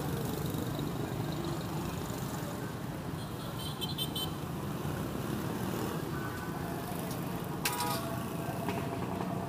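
Street traffic noise: a steady hum of passing vehicles, with brief clicks about four seconds in and a short sharp sound near the end.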